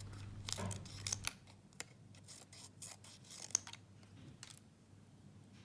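Small multitool scissors of a Leatherman Free P4 snipping: several short crisp snips close together, then a few single ones spaced out.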